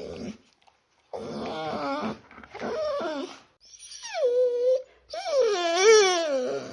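Small dog whining and whimpering in about four drawn-out, wavering cries. One cry falls in pitch and then holds, and the last is the longest.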